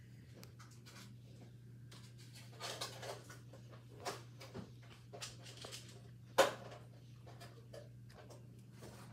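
Rain spattering and tapping against a window pane in irregular gusts, with one sharp, louder hit about six seconds in, over a steady low hum.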